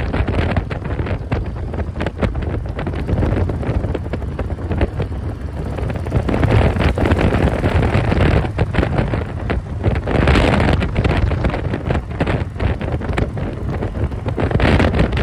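Wind rushing and buffeting over the microphone of a motorcycle moving at road speed, gusty and unbroken, with the bike's engine running underneath.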